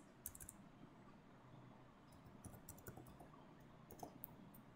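Faint, scattered computer keyboard keystrokes: a few soft clicks spread through an otherwise quiet stretch.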